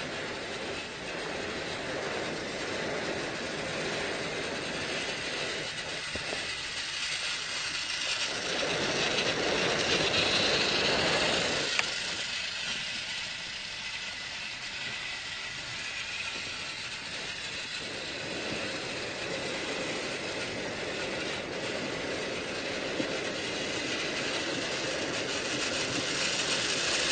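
A train running steadily, swelling louder for a few seconds about eight seconds in, with a sharp click about twelve seconds in, then building again near the end.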